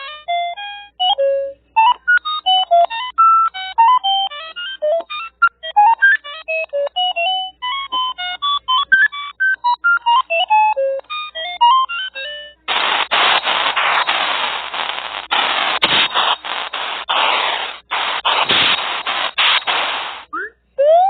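Synthetic electronic sound effects: a rapid run of short beeps jumping about in pitch like computer bleeps, then, a little past halfway, a loud burst of static hiss broken by brief dropouts that cuts off suddenly near the end.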